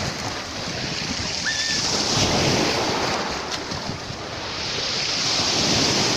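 Sea waves washing and breaking on the shore, swelling louder about two seconds in and again near the end, with wind buffeting the microphone.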